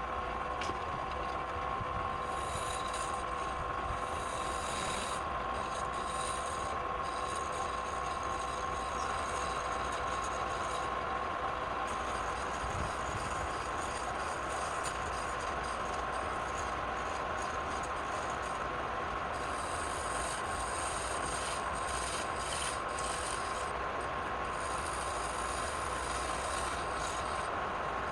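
Wood lathe running steadily with a constant whine, while a turning tool cuts the spinning wood in intermittent scraping passes.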